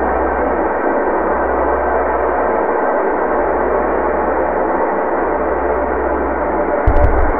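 A steady, unchanging ambient drone: a low hum with a hissy wash over it, like a sustained gong swell. A sudden low thump comes near the end.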